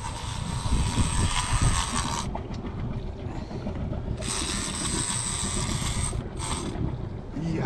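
Big-game fishing reel's drag screaming as a hooked wahoo strips line: a steady high whirr for about two seconds, a pause, then a second run of about two seconds and a short burst.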